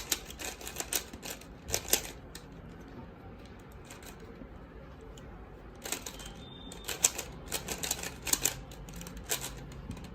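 A 3x3 Rubik's cube being turned fast by hand, its plastic layers clicking in quick flurries, with a lull of a few seconds in the middle.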